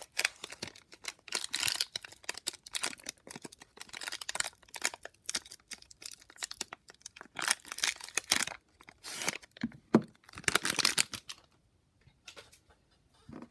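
Plastic wrapper of a football trading-card fat pack crinkling and tearing as it is pulled open and the cards are worked out, a run of irregular sharp crackles that dies down near the end.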